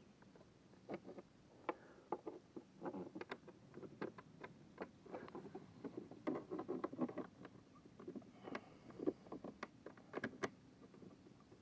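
Scattered light clicks, taps and knocks at irregular intervals as hands handle the plastic kayak hull and its drive-well fittings.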